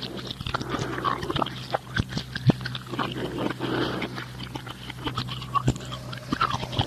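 A spooky sound effect of an animal-like creature grunting and snuffling among many wet clicks and crunches, like gnawing. A low steady hum from the old cassette runs underneath.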